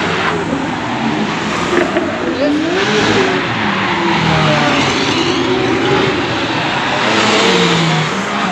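Sports cars, among them a McLaren, revving and accelerating past one after another, their engine notes rising and falling several times.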